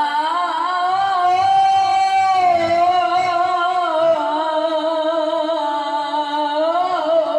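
A male Qur'an reciter (qari) chanting in the melodic tilawah style through a hand microphone. He sings one long, unbroken phrase, holding a high note and ornamenting it with wavering turns up and down.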